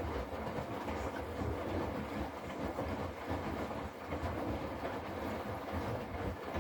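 Hotpoint Active Care washing machine running, its drum turning with a steady, deep rumble and mechanical noise.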